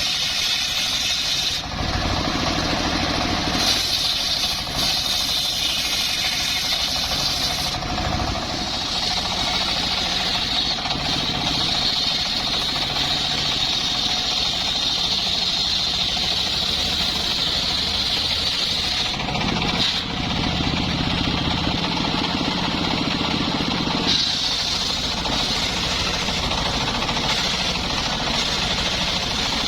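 Two-stroke chainsaw running continuously at high revs. Its engine note shifts lower for a second or two early on and again for a few seconds past the middle.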